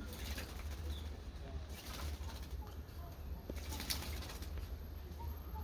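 Blue jay bathing, fluttering its wings in the water in three short splashing bursts about two seconds apart, over a steady low hum.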